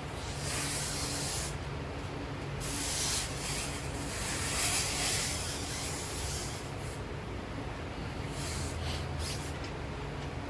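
Bursts of hissing, rubbing noise from a shoe sole being worked at a shop machine, three times, the middle one the longest, over a steady low machine hum.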